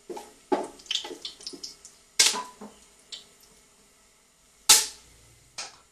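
A wooden spatula knocking and scraping against the inside of a metal cooking pot while stirring whole spices in hot oil. A run of light knocks in the first two seconds is followed by two sharper knocks about two and a half seconds apart, and a last light one near the end.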